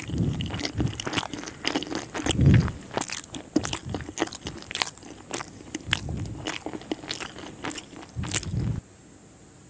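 Close-miked eating of schezwan noodles: wet chewing and slurping with many sharp clicky mouth sounds and a few heavier swells. It stops suddenly near the end.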